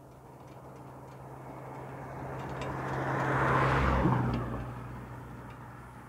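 A car passes close by: its engine and tyre noise swell to a peak about three and a half seconds in, then fade away, over a steady low hum.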